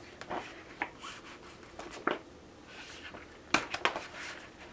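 A paperback book being handled: soft scrapes and light clicks, then a quick cluster of sharp taps about three and a half seconds in as the book is picked up.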